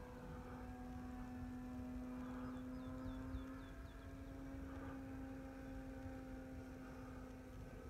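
Radio-controlled model airplane's motor and propeller droning steadily at a distance, one even pitch throughout.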